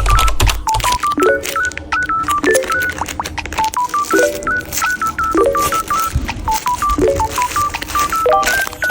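Background music: a bouncy tune of short beeping synth notes stepping up and down over a chord that repeats about every second, with sharp clicks throughout.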